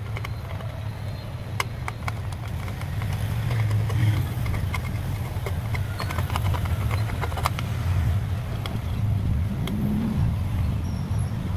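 A steady low rumble like a running motor, with scattered light clicks and taps over it.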